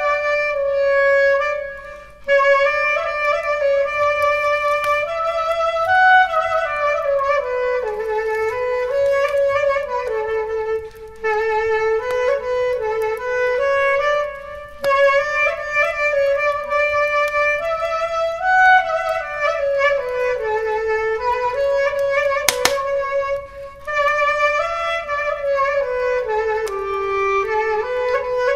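Solo clarinet playing a slow melody with pitch slides between notes, in phrases broken by short pauses. A single sharp crack sounds about three-quarters of the way through.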